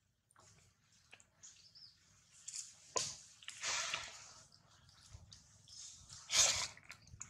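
Faint, irregular wet smacks and rustles from a newborn macaque rooting and suckling at its mother's nipple, with a few louder scuffs about three, four and six seconds in.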